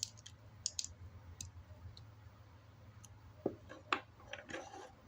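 Plastic Lego bricks clicking and snapping together as pieces are handled and fitted: scattered sharp clicks, the loudest a pair about three and a half to four seconds in, followed by a brief rustle of pieces. A low steady hum runs underneath.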